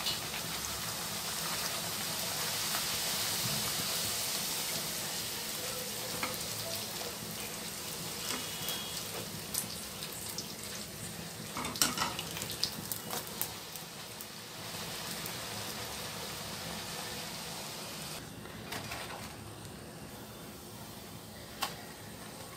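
Puris deep-frying in hot oil in a kadai: a steady sizzle that eases off a little in the last few seconds, with a few sharp clicks of a utensil against the pan.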